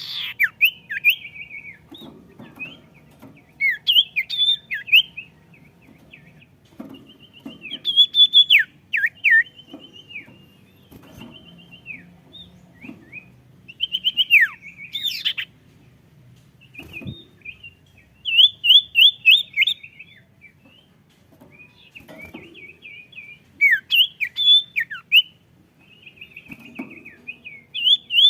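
Sirtu songbird singing in lively bouts every couple of seconds: quick high trills and chirps mixed with sharp downward-sweeping whistled notes.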